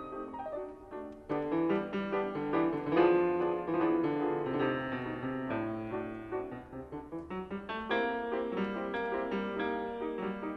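Piano music, with chords and many notes struck in quick succession.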